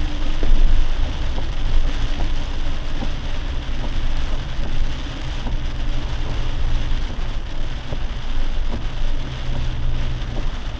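Rain beating on a lifted Jeep as it drives on a wet road, over the steady hum of its engine and tyres, heard from inside the cab.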